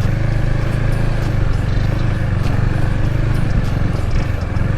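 Motorcycle engine running steadily while the bike is ridden over a rough off-road track.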